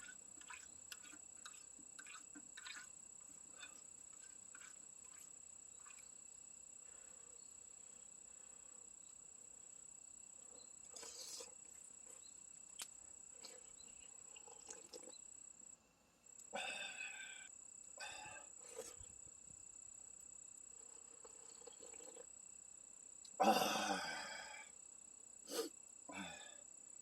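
Insects, crickets by the sound of it, chirring in one steady high-pitched note. Scattered small clicks and two short noisy bursts lie over it.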